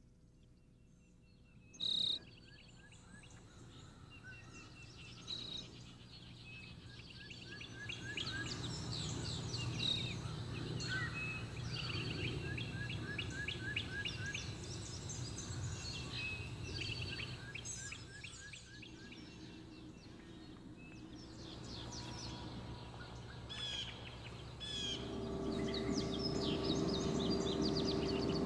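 Many songbirds singing at once: overlapping chirps, trills and whistles, growing louder, over a low steady hum. A steady low tone comes in near the end.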